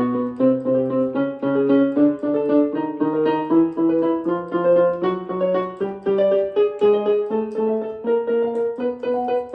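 Piano accompaniment for a fast glissando vocal exercise: chords struck about twice a second, stepping gradually higher in pitch, with no voice singing over them.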